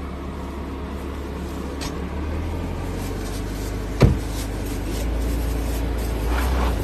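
Maserati Levante SUV's engine running with a steady low hum that grows louder after about two seconds and again near five seconds as the car pulls away; a car door slams shut about four seconds in, the loudest sound.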